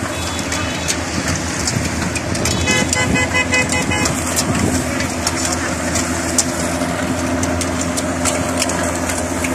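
A large pack of road-racing cyclists passing close by: a steady rush of tyres and wind with scattered clicks from the bikes. A vehicle horn sounds once for just over a second, about three seconds in.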